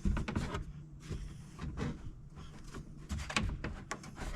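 Scattered metal knocks and clanks as the front bumper's mounting brackets are worked loose from the pickup's frame, with a faint steady low hum underneath.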